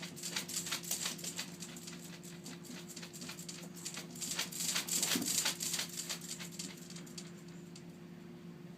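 Kittens play-fighting: quick scratchy taps and scrabbles of paws and claws on a surface, in two flurries, one at the start and a louder one about four to six seconds in. A steady low hum runs underneath.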